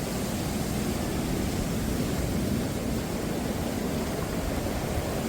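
Steady rushing noise of sea surf, with a low rumble of wind.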